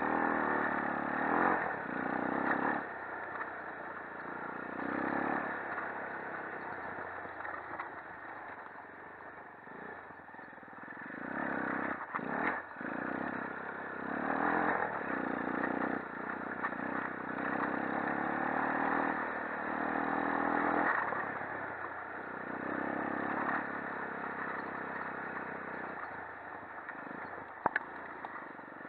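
Shineray 250 ATV engine revving up and down in repeated throttle surges as the quad is ridden, with clatter and a few sharp knocks, one near the end.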